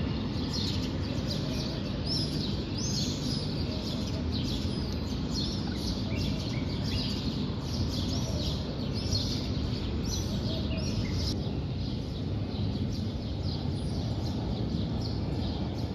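Small birds chirping again and again, short high calls a few times a second, over a steady low background rumble of ambient noise.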